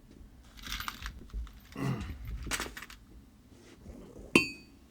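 Metal tools and parts being handled: scraping and rustling, then a sharp metallic clink that rings briefly near the end.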